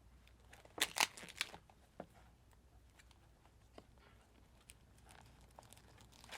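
Product packaging being opened by hand: a short burst of tearing and crinkling about a second in, followed by faint scattered clicks and rustles.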